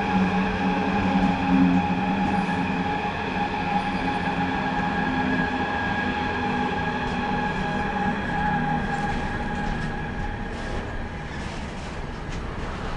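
LKAB IORE electric locomotive hauling an empty ore train passes close by, a steady electric whine over the rolling rumble. After about nine seconds the whine fades as the empty ore hopper wagons roll past, their wheels rumbling and clicking.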